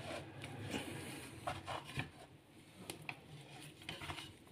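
Hands kneading and folding oiled dough in a steel bowl: soft rubbing and squishing, with a few light knocks against the metal.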